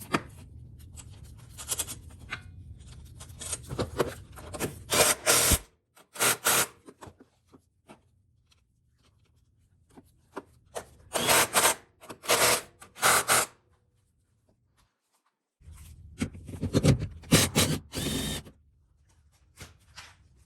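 Short bursts of tool noise, scraping and grating, from work on a car's suspension, coming in three clusters with silent gaps between.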